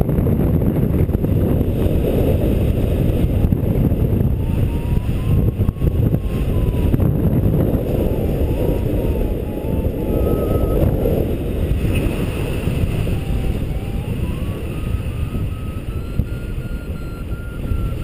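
Wind rushing over the microphone in paraglider flight. From about four seconds in, the flight variometer's tone sounds over it, its pitch drifting up and down and climbing higher near the end as the glider rises.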